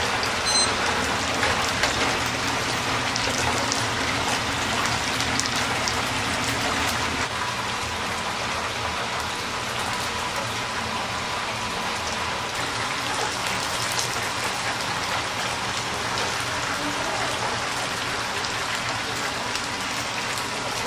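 Karaage chicken pieces deep-frying in a stainless steel commercial fryer, the oil sizzling and crackling steadily.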